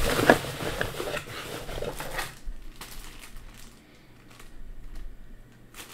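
Camera-box packaging and accessories being handled and put back: rustling and crinkling with scattered clicks and knocks, busier in the first two seconds and quieter after. A short pitched sound comes at the very start.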